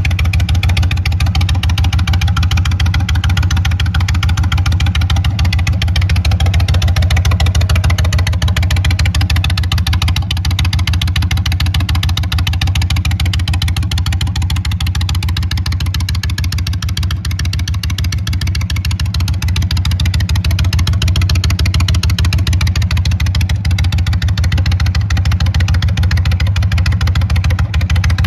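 2022 Indian Chief's air-cooled Thunderstroke 116 V-twin idling steadily through a Freedom Performance Sharp Curve aftermarket exhaust, an even low note with no revving.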